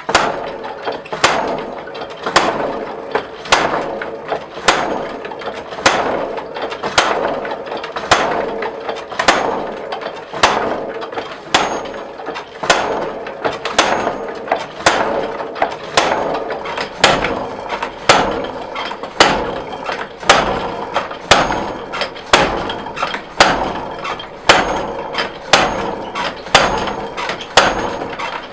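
Hammer blows striking steel, at an even pace of about one a second, each strike with a metallic ring: steel being forged into a small anvil.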